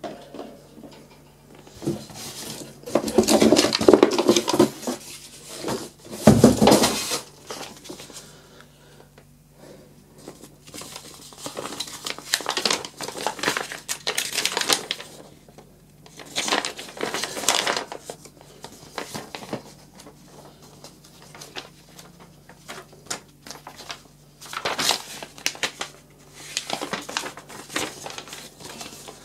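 Unpacking and handling a desk fan: rustling and crinkling of plastic wrapping and packing, with clattering knocks of plastic parts, in several irregular bursts, loudest in the first third.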